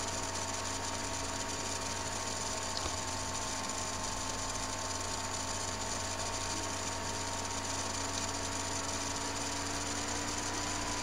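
Steady hiss with a constant electrical hum and a few faint whining tones: the background noise of the recording setup.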